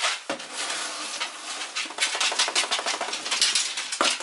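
Small dog licking and eating from a plastic tub held out to it: a rapid, irregular run of wet clicks and crunches.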